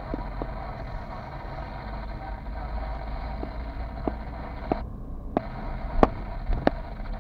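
Car driving at low speed, heard from inside the cabin: a steady low engine and road rumble, with a scatter of short sharp clicks and knocks from the cabin, the loudest two about six seconds in.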